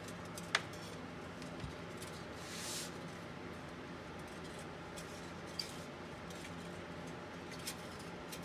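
Faint handling sounds of a fish wire and its coiled spring being worked through the holes of a steel truck frame rail: a sharp click about half a second in, a soft scrape a couple of seconds later and a few lighter ticks near the end, over a faint steady hum.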